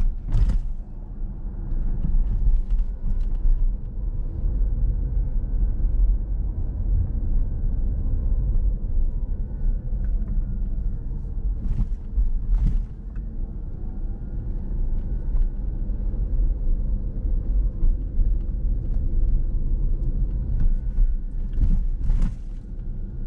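Low, steady road and tyre rumble of a Ford Mustang Mach-E electric SUV driving slowly, heard from inside the cabin, with no engine note, only a faint steady whine. A few brief knocks come through, once near the start, twice about halfway and once near the end.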